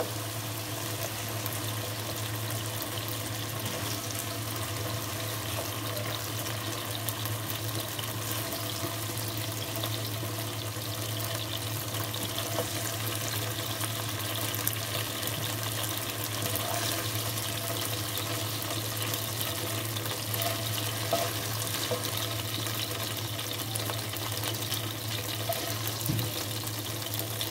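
Hot oil sizzling steadily in a wok as fried chicken strips are scooped out with a slotted spoon, with a few faint scrapes, over a steady low hum.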